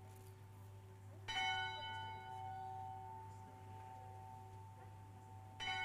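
A bell struck twice, about four seconds apart, each stroke ringing on and slowly fading; the previous stroke is still dying away at the start.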